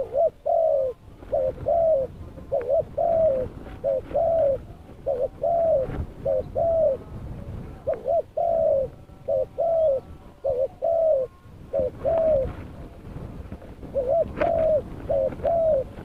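Spotted dove cooing over and over: short, low arched coos in groups of two or three, with a pause of about two seconds near the end.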